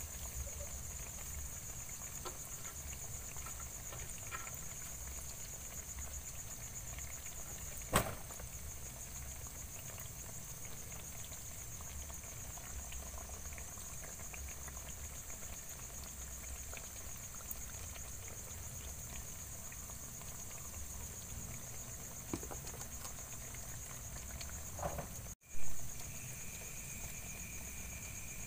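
Night insects chirring steadily in a high pitch, with a second, lower trill joining near the end. A spoon clinks once against a metal wok about eight seconds in.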